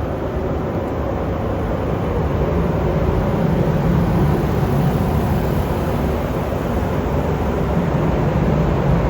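Train running with a steady, loud low rumble.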